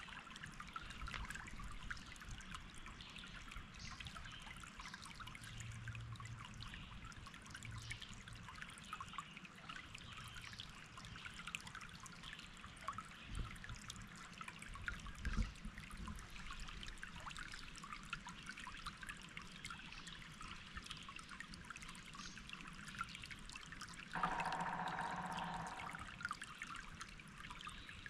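Water trickling and splashing steadily, a continuous patter of small drips and splashes. Near the end a steady pitched tone sounds for about two seconds, louder than the water.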